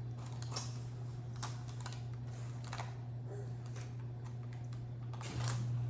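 Scattered light clicks and taps of candy dinosaur bones being handled and pushed into a pan of brownie batter, over a steady low hum.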